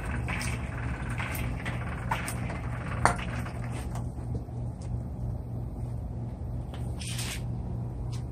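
A steady low hum with a few light clicks and knocks, the sharpest about three seconds in.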